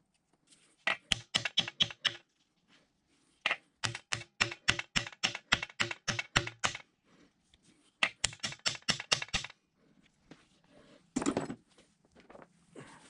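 Rapid taps of a mallet on a machined metal disc sitting in the bore of a cast-iron drill press head, driving it down into the casting, about five blows a second in three runs. A short scuffing noise follows near the end.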